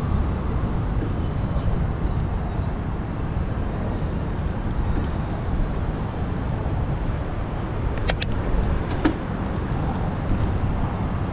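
Steady city traffic and wind rumble heard while riding a bicycle, with two short sharp clicks near the end.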